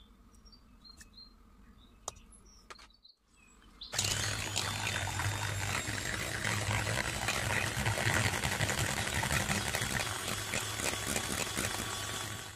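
Electric hand mixer beating eggs in a stainless steel bowl, starting about four seconds in and running steadily, with a low motor hum under the whirr of the beaters. Before it starts, a few faint bird chirps.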